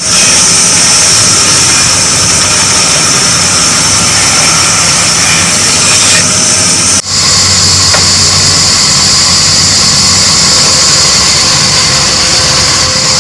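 A loud machine running steadily, with a strong high hiss and a few steady whining tones; the sound drops out for an instant about seven seconds in.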